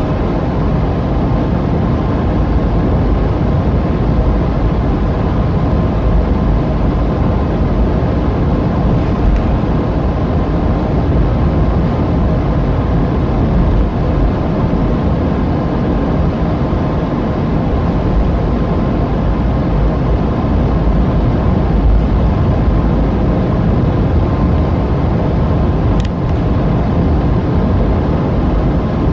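Steady low rumble of the Jayakarta Premium passenger train running, heard from aboard, with one brief click near the end.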